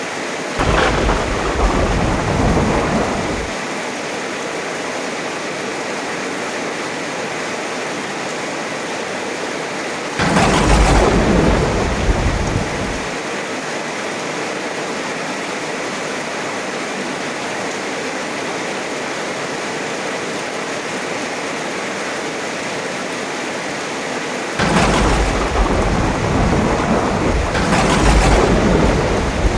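Heavy rain hissing steadily, with rolls of thunder rumbling about half a second in, about ten seconds in, and twice more near the end.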